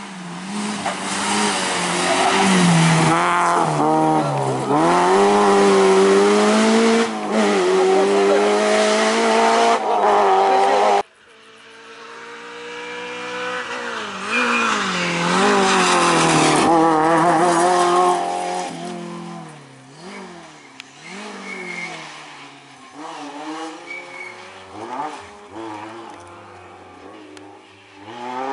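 Rally car engine at full throttle, its note rising and falling sharply through gear changes as it passes. About 11 seconds in the sound cuts abruptly to another rally car that approaches and passes, revving hard, then fades into the distance with its engine note still climbing and dropping.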